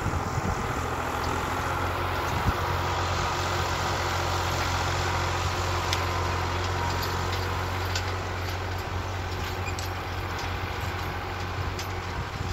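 New Holland 65-56S tractor engine running steadily under load while it pulls a tine harrow, heard from a distance and fading slightly as the tractor moves away.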